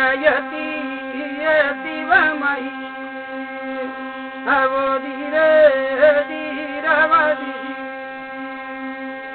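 Steady humming drone of a thali, a brass plate with an upright stick rubbed by hand, under a singer chanting a devotional tale in short phrases. The voice drops out near the end, leaving only the drone.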